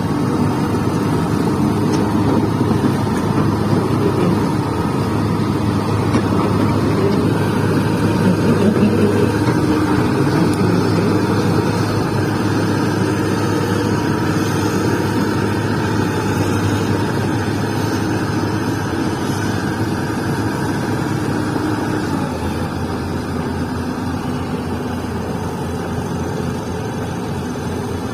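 Heavy-equipment diesel engine running steadily, easing slightly about 22 seconds in.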